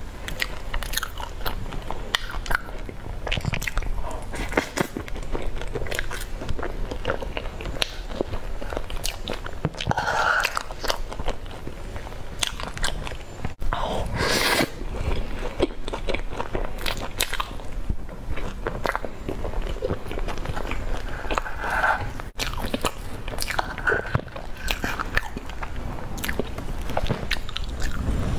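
Close-miked chewing and biting of a soft cheese-baked dish with a crumbly topping: many quick wet mouth clicks and light crunches.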